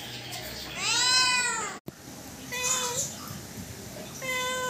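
Domestic cat meowing three times: one long meow rising and falling in pitch that is cut off abruptly, then two shorter, steadier meows.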